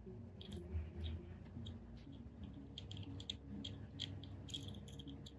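Faint, irregular small clicks and scrapes of a precision screwdriver tip turning the tiny screw of an Apple Watch's battery-connector bracket.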